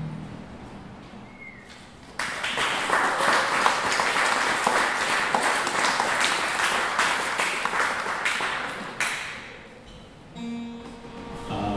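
An acoustic guitar's last chord rings out and fades. About two seconds in, an audience applauds for some seven seconds, then the clapping dies away. Near the end a few acoustic guitar notes start again.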